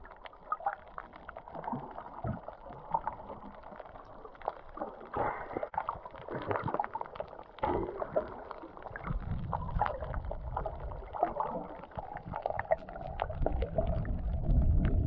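Underwater ambience picked up by a camera below the surface: muffled water sloshing and gurgling, with many small crackles and clicks, and a low rumble of moving water that swells around the middle and again near the end.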